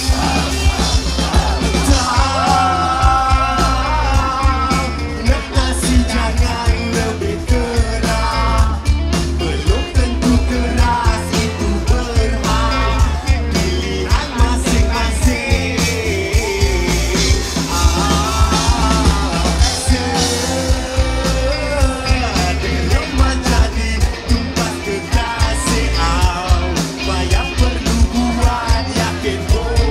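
Live rock band playing through a concert PA, heard from within the crowd: a singer over electric guitars and a steady drum beat.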